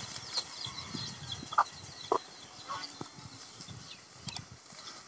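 Chickens clucking a few short times, with faint bird chirps early on, over the light rustle and snapping of leafy branches being handled.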